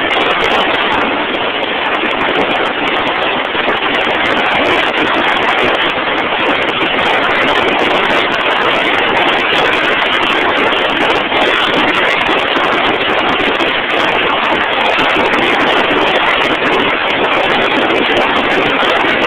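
Steady, loud machinery noise that holds even without a clear rhythm, pitch or change.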